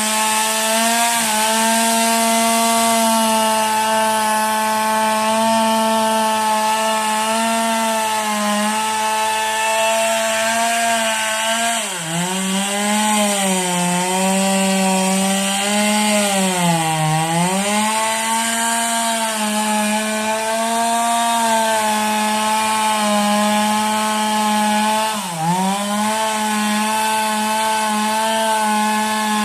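Stihl chainsaw running at high revs and cutting wood. Its pitch sags and recovers three times, twice in the middle and once near the end, as the chain is loaded in the cut.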